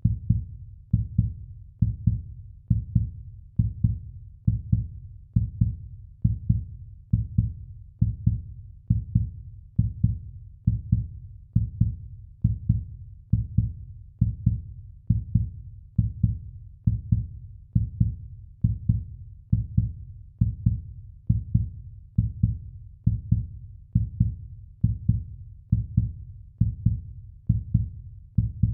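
Heartbeat sound effect: a steady, fast beat of deep thumps, each beat a lub-dub pair, a little over one beat a second.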